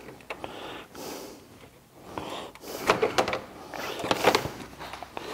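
Plastic clicks and scraping as push-pin retainer clips are worked out by hand and the plastic radiator cover panel is handled, with a cluster of sharper clicks about three to four and a half seconds in.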